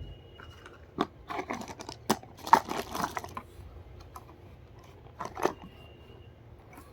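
Packaging being handled and opened: a sharp click, then a run of crinkling, crackling and tearing, with two more sharp clicks a little later.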